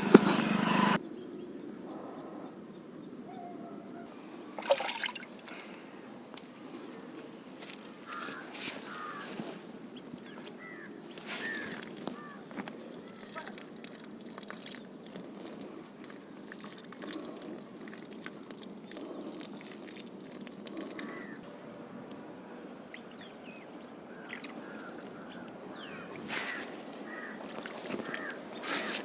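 Water being poured and trickling onto the soil around a freshly planted sapling, faint, with a sharper knock about five seconds in.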